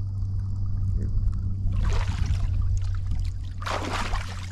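Water splashing and running off a person climbing out of a hot-spring pool: two rushes of splashing, about two seconds in and a louder one near the end, over a steady low hum.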